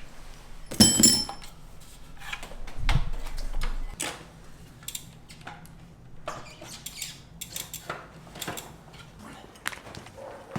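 Scattered clicks, knocks and clatter of objects being handled, with a loud clink that rings briefly about a second in and a dull thump around three seconds.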